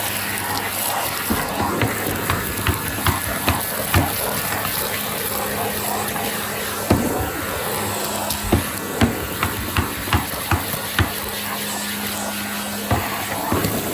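Goodmans TurboMax vacuum cleaner running steadily, with many irregular sharp clicks and knocks over the motor noise.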